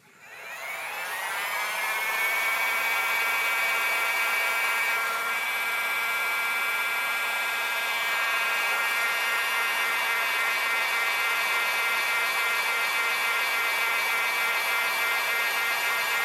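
Electric heat gun switched on, its fan motor spinning up over about two seconds to a steady whine with a rush of blowing air, warming the phone's screen adhesive.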